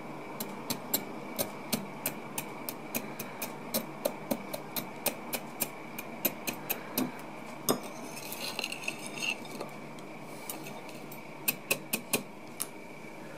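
Metal fork clinking against a ceramic plate while chopping soft red jelly: sharp clinks about three a second, a short scraping stretch about two-thirds through, then three more clinks near the end, over a faint steady high whine.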